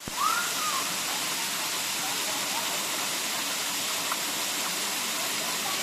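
Waterfall pouring, a steady rushing hiss. A short, high rising-and-falling call cuts in about half a second in.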